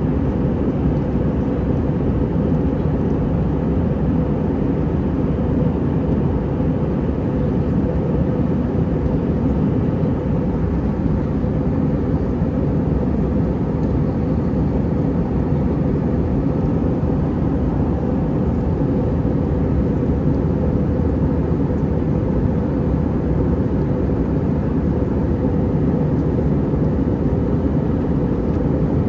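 Cabin noise inside an Airbus A319 with IAE V2500 engines: a steady, even low rumble of engines and airflow.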